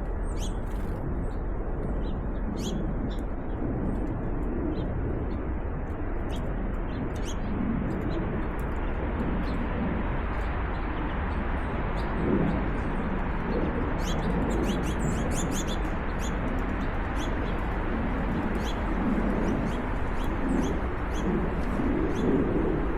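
Birds chirping with short high calls, heard over a steady outdoor rushing background.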